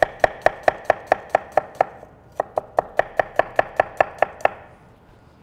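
Chef's knife slicing a yellow onion on a wooden cutting board: quick, even chops of the blade on the board, about five a second. The chops break off briefly about two seconds in, resume, then stop about four and a half seconds in.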